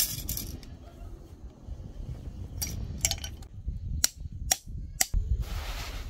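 Blackdog camping hammer striking a metal tent stake into gravelly ground: sharp metallic clinks, the last three about half a second apart near the end. It opens with the tail of a clatter of metal tent stakes spilled onto the gravel.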